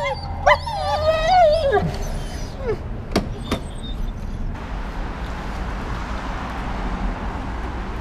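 German Shepherd whining in high, wavering whines for the first two seconds or so, then two sharp clicks about three seconds in, followed by a steady rushing noise.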